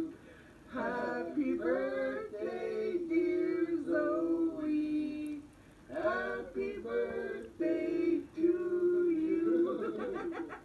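People singing in sung phrases of held notes, with short breaks between phrases and no clear instrumental backing.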